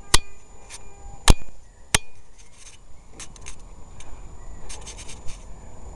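Three sharp metallic knocks in the first two seconds, the first ringing briefly: metal fittings on a tall ship's mast and rigging knocked while climbing out onto the foot rope. Faint clicks and rubbing follow.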